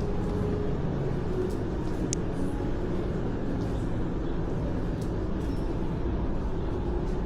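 Steady outdoor city ambience: a low, even rumble with faint distant voices under it, and one brief high squeak about two seconds in.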